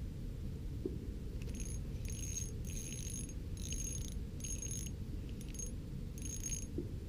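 Pflueger Trion ice-fishing reel being cranked in about seven short spurts, each a brief high whirring rattle, as a fish is reeled up through the ice hole.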